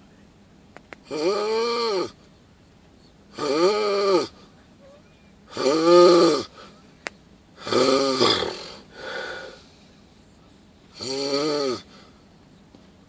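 Snoring: six snores spaced roughly two seconds apart, each under a second long, with a pitch that rises and falls. The loudest comes about six seconds in, and a weaker one follows close after the fourth.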